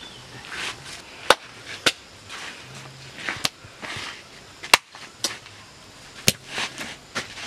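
About seven sharp smacks of hands striking, at uneven intervals, three of them much louder than the rest, amid shuffling and scuffing noise.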